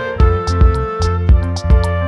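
Background music: sustained melody notes over a steady beat of about two thumps a second.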